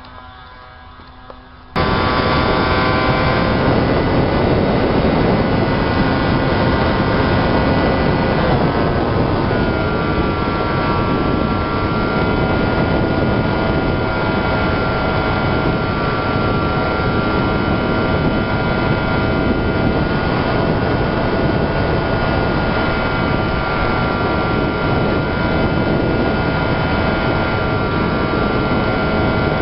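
Homemade pusher RC plane's propeller motor: first a faint whine of the plane heard from the ground, then a sudden switch to the loud drone of the motor and propeller with wind rush, picked up by the camera riding on the plane. The whine shifts in pitch briefly about eight seconds in, then holds steady.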